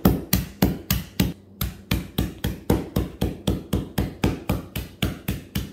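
Mallet pounding lump charcoal wrapped in a cloth on a concrete floor, crushing it down to gravel-sized bits. Quick, even blows, about four to five a second, with a short pause about a second and a half in.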